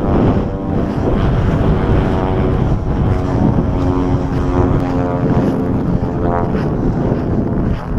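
Strong wind buffeting the microphone in a low, constant rumble, with a droning hum of several steady pitches over it for a few seconds in the middle.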